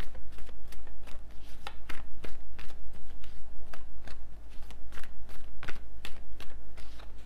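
A deck of tarot cards being shuffled by hand: a steady run of sharp card clicks and snaps, several a second.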